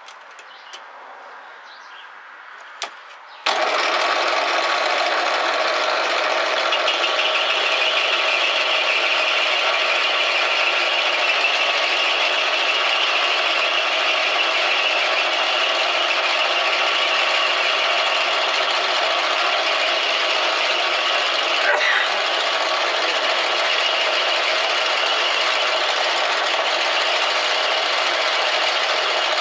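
A few light clicks, then a small benchtop metal lathe is switched on about three and a half seconds in and runs steadily while turning down a brass workpiece.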